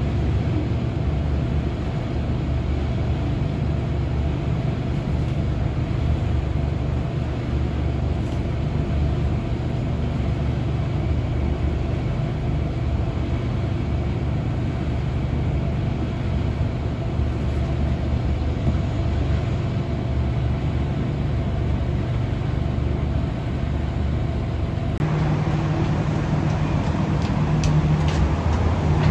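Inside a passenger train coach arriving at a station: a steady low rumble with a constant hum. Near the end the sound shifts to a louder, higher hum with a few light clicks.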